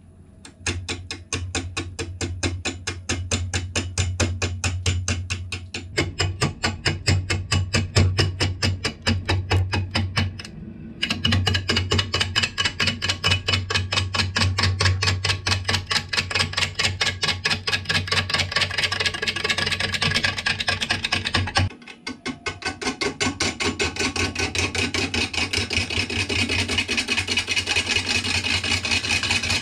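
Bowl gouge taking interrupted roughing cuts on an out-of-round apple wood blank spinning on a Rikon 70-3040 wood lathe, a fast rhythmic knocking as the tool meets the high spots each turn, over the lathe motor's hum. The sound cuts off briefly twice, about eleven and twenty-two seconds in.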